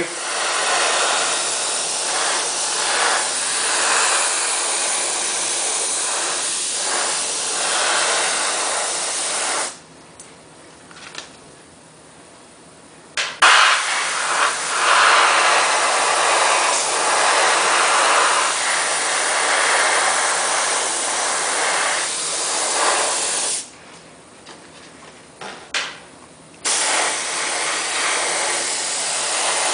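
Airbrush spraying leather dye: a steady hiss of air and atomised dye in three long passes, stopping twice for a few seconds, about ten seconds in and again near the end.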